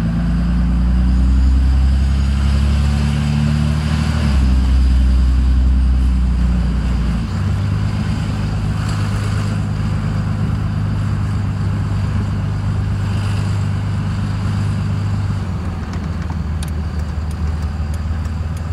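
A 5.9 Cummins inline-six turbo-diesel in a 2005 Dodge Ram, heard from inside the cab while the truck pulls away. The engine note climbs for about four seconds, drops, changes again about seven seconds in, then settles into a steady cruise.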